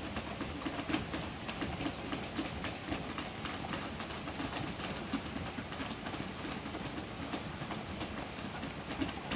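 Heavy rain falling on the roof overhead, heard from inside: a steady wash of rain with many sharp individual drop hits and soft low knocks.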